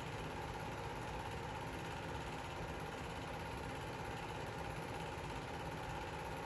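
Home-movie film projector running: a steady mechanical whir with one constant tone through it, unchanging throughout.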